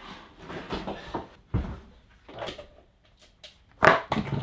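A chest freezer being shoved into place: scraping and knocking, with a heavy thud about one and a half seconds in. A louder clatter follows near the end.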